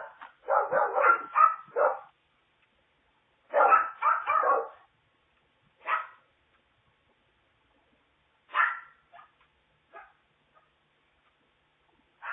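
A dog barking: a quick run of several barks, a second run a couple of seconds later, then single barks a few seconds apart, each quieter than the last, heard through a Ring doorbell camera's microphone.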